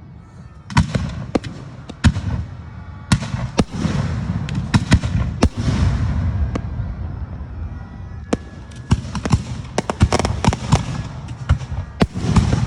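Fireworks going off: volleys of sharp bangs and crackles over a steady low rumble, with a quieter spell in the middle followed by a dense rapid run of bangs.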